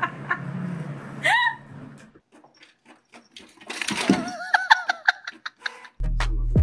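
A person laughing in a quick run of short pitched 'ha' sounds, among scattered clicks and knocks. Near the end a steady low hum and music start.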